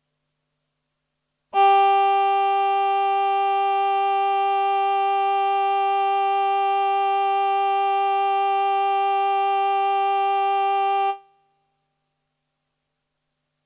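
A single held note on a Roland VP-330 vocoder-synth's male 'Human Voice' choir sound. It comes in suddenly, holds steady for about nine and a half seconds, then fades away quickly.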